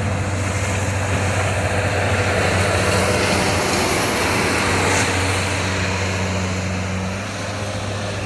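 Bobcat S185 skid steer's turbo diesel engine running steadily with its newly fitted turbocharger. It gets a little louder through the middle and eases slightly near the end.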